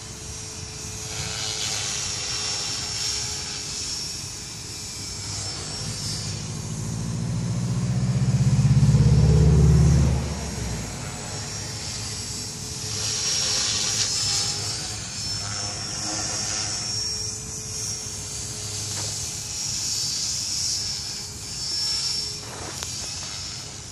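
Electric Align T-Rex 450 Pro RC helicopter in flight: a steady high whine from its brushless motor and gears over the rotor's low hum, head speed held steady by the ESC governor. A loud low rumble swells to a peak about nine seconds in and cuts off suddenly around ten seconds.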